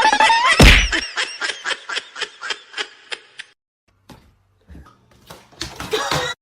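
A loud thump, then a person laughing in quick repeated bursts that fade away over a few seconds. Fainter knocks and voice sounds follow near the end.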